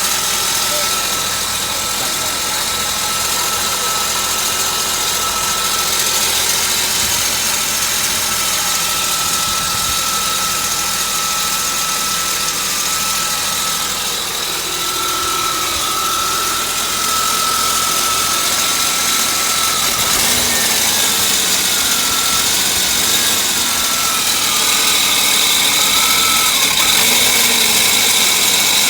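1998 Volvo V90's engine idling with a steady high-pitched screech from the camshaft area, wavering in pitch about two-thirds of the way through, with a second, higher squeal joining near the end. The noise began as metal on metal and changed after the oil, which was low, was topped up; the owner suspects a valve.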